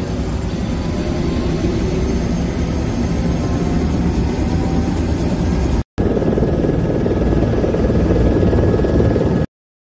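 Helicopter turbine engine and rotor running loud inside the passenger cabin, with a faint whine that rises slowly in pitch over the first few seconds. The sound drops out briefly about six seconds in and cuts off abruptly near the end.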